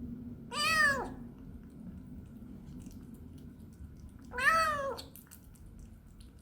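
A young kitten meowing twice, each meow rising and then falling in pitch, about four seconds apart. The owner takes the meows as a sign that the kitten is hungry.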